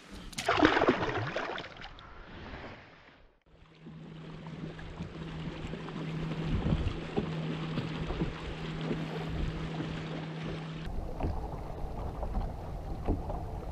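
A released smallmouth bass drops back into the lake with a short splash. After that comes water and wind noise around a bass boat, with a steady low hum through the middle.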